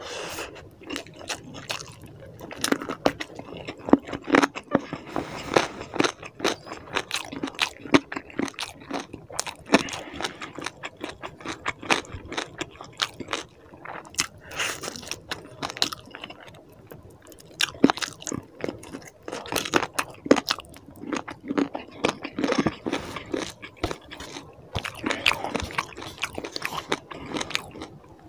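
Close-miked chewing and biting of chicken curry with rice eaten by hand: a steady run of short mouth clicks and smacks.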